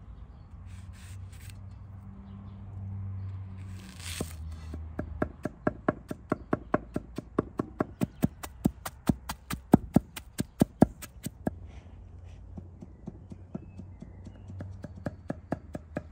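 Knife chopping on a cutting board in quick, even strokes, about four to five a second for several seconds, then lighter and sparser strokes near the end.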